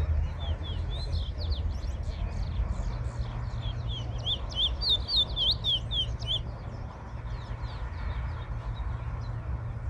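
Twatwa (large-billed seed finch) singing: a fast run of short, high whistled notes, several a second, loudest near the middle and stopping about two-thirds of the way through, over a steady low rumble.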